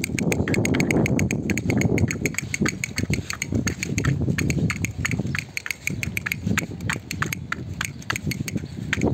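Battery-operated toy drummer figure beating its sticks on its small plastic drum in a rapid, even tapping, about six taps a second.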